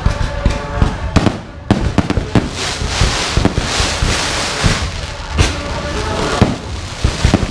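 Aerial fireworks going off: a quick run of sharp bangs from shells launching and bursting. From about two and a half seconds in, a dense crackle and hiss of glittering stars builds up.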